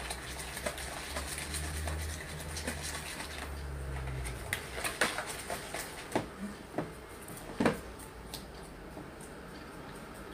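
Wire whisk beating eggs and margarine in a plastic bowl: quick, irregular clicking and tapping of the whisk against the bowl, with a few louder knocks.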